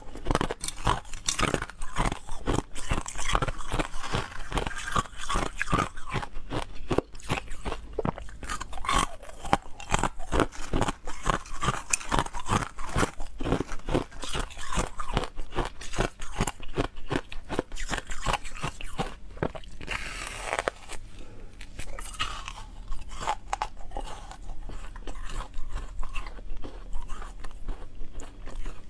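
Hard frozen ice being bitten and chewed close to the microphone: dense, rapid crunching and cracking throughout.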